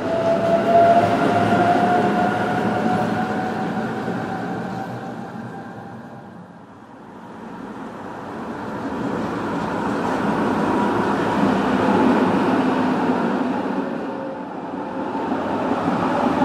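A Budapest tram passes close by, its wheels rumbling on the rails under a faintly rising whine. The sound fades away around the middle, then swells again with passing road traffic and a second tram near the end.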